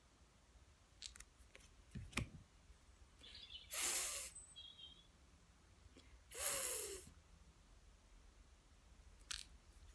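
A woman saying the pure phonics sound "th" twice, about two and a half seconds apart, each a short breathy hiss. Faint bird chirps and a few soft clicks are heard between them.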